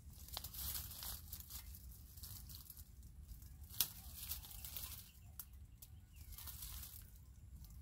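Leaves and twigs of a fruiting shrub rustling in irregular bursts as branches are brushed and shaken, with a few sharp twig clicks, the loudest about four seconds in.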